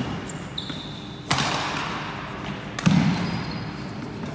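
Badminton rally in a large sports hall: two sharp racket strikes on a shuttlecock about a second and a half apart, with shoes squeaking briefly on the wooden court floor.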